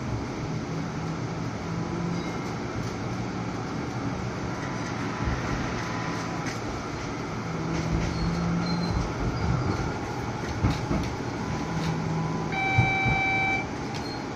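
An electric tram running along the street, heard from inside the passenger saloon. A low motor hum comes and goes over the rolling rumble, with a few knocks from the wheels on the rails. A steady electronic tone sounds for about a second near the end.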